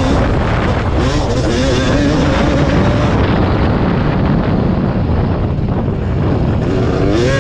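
A 1991 Yamaha WR250's two-stroke engine heard from on the bike, revving up through the gears over steady wind noise on the microphone. From about three seconds in the revs drop away and the engine note sinks into a low rumble, then it climbs again near the end.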